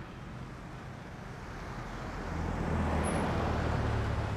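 Road traffic noise, with a motor vehicle's engine growing louder about two seconds in.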